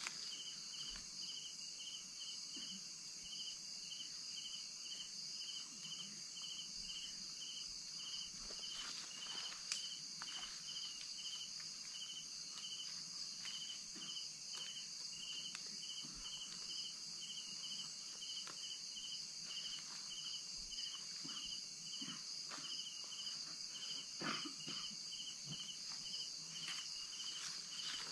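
Night insect chorus: a steady high drone of insects with a cricket-like chirp repeating in an even pulse throughout. A few faint rustles and a single click break in now and then.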